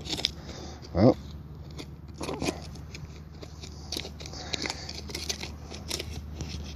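Metal-detecting pinpointer probe poking and scraping through loose soil and small stones in a dug hole: a run of short gritty scrapes and crunches. A short rising tone sounds about a second in.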